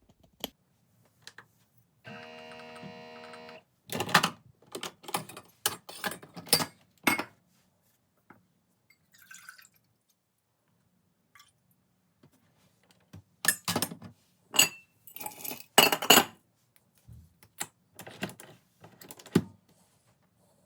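Handling of parcel packaging and small objects: rustling, clicks and knocks in two clusters, after a steady buzzing tone lasting about a second and a half, about two seconds in.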